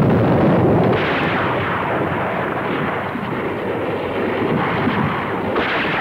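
Battle sound effects on an old film soundtrack: a dense, continuous din of gunfire and artillery blasts.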